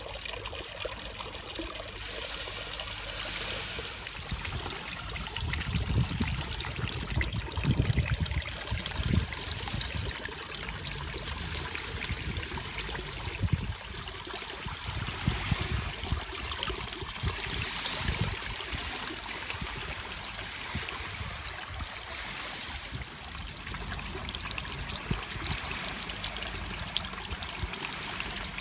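Water trickling and splashing steadily from a granite column fountain down the stone into its pebble-filled basin. A few low rumbles come through between about six and nine seconds in.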